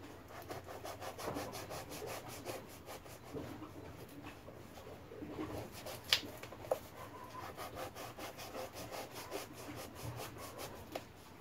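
Small knife carving and scraping a groove into a round fishing float, in quick repeated rasping strokes, with a sharp click about six seconds in.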